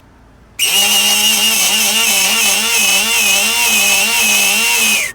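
Vintage 12-volt battery-powered spark plug cleaner running with sand inside, scouring the plug: a steady motor whine with a hiss over it, its pitch wavering slightly. It switches on about half a second in and cuts off near the end.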